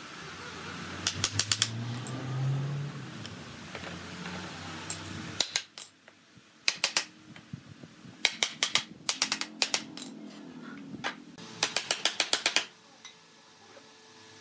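Steel hammer striking a wooden chair frame to drive its joints home, in quick runs of light blows: a few about a second in, more bursts in the middle, and a fast run of about eight near the end. A steady machine hum runs under the first five seconds and stops abruptly.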